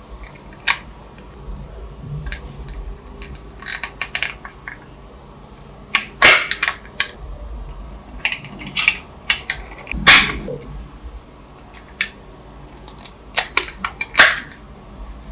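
Small plastic parts clicking and clacking against a model car's body shell as they are fitted and snapped into place: scattered sharp clicks, the loudest about six, ten and fourteen seconds in.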